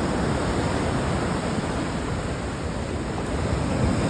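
Ocean surf washing in as a steady rush of breaking waves, with some wind buffeting the microphone.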